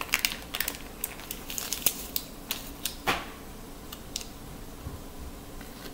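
A ramen seasoning packet crinkling and being torn open by hand: a run of small crackles and clicks, with one longer tearing swish about three seconds in, then it goes quiet.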